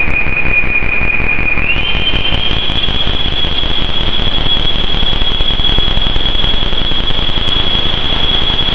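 Roland AIRA Compact S-1 synthesizer drone: a dense wash of noise with a single high whistling tone that slides up in pitch about two seconds in and then holds steady.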